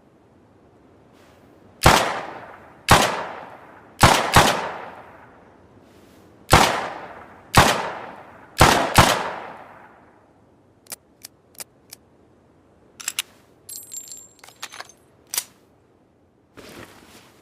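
Makeshift revolver sound effect: eight sharp gunshot-like bangs, each with a long decaying tail, two of them coming as quick doubles. Then three light clicks, followed by a run of small metallic clicks with a high ringing tinkle and a short rustle near the end.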